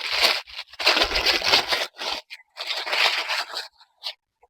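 Packaging being handled: four loud spells of crinkling and scraping rustle over about three and a half seconds.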